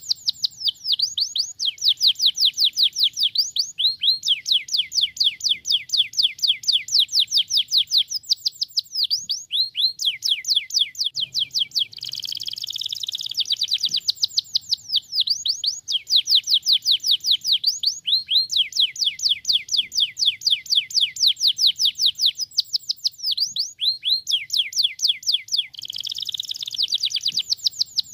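Domestic canary singing a continuous song of fast trills, each a run of repeated sweeping notes at about six a second. The phrases change every few seconds, with denser rolled passages at the start, about halfway through and near the end.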